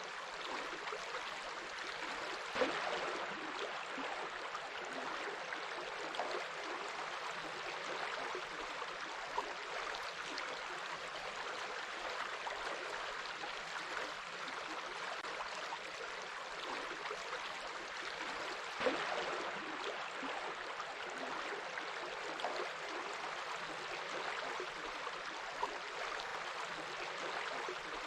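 Stream water flowing steadily over rocks, an even rushing wash with small trickles and a few brief louder splashes.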